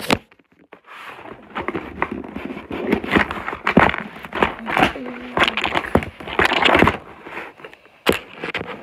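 Toy packaging being handled and pulled open: irregular crinkling and crackling with sharp knocks and scrapes.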